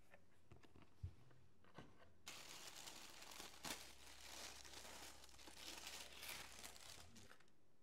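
Tissue paper rustling and crinkling as it is unfolded inside a gift box. It starts about two seconds in, after a few soft knocks, and stops shortly before the end.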